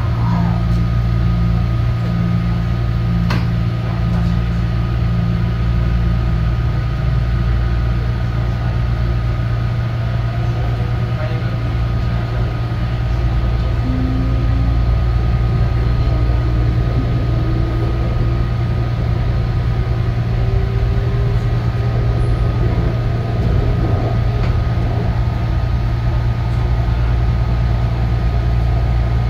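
Inside a Taichung MRT Green Line metro car as it pulls away from a station and runs along the elevated track: a steady loud low hum throughout, with a low pulsing tone for the first several seconds. From about halfway through, a thin motor whine rises in pitch as the train gathers speed.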